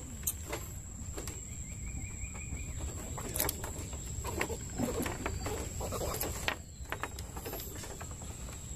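Outdoor waterside ambience: a steady high insect drone over a low wind rumble, with scattered light clicks and a brief bird note about two seconds in.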